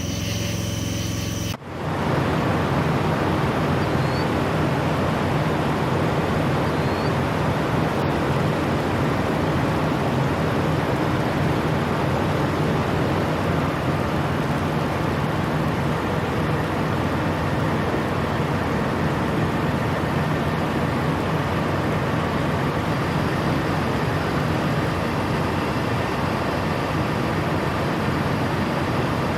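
Semi truck's diesel engine running steadily with a low hum, starting after an abrupt cut about a second and a half in.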